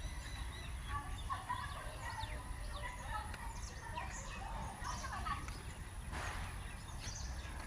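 Birds chirping and calling in many short rising and falling notes over a steady low rumble.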